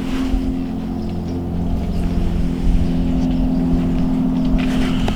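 A steady, low engine drone with a constant pitch, as from a motor running at an even speed, with a couple of sharp clicks right at the end.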